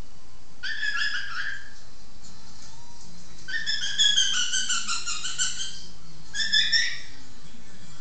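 African grey parrot whistling in three bouts of quick, wavering notes, the middle bout the longest and loudest.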